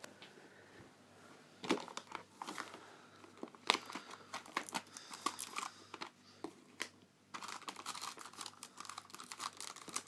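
Plastic cat-treat pouch crinkling and rustling as it is handled, in irregular crackly bursts, busiest over the last few seconds.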